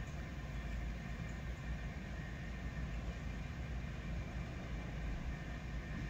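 Steady low rumble of outdoor background noise, with no distinct event standing out.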